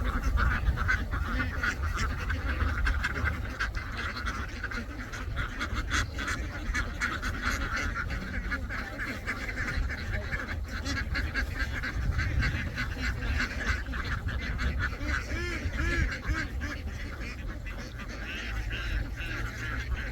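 A large flock of domestic ducks quacking continuously, many calls overlapping into one dense chorus, over a steady low rumble.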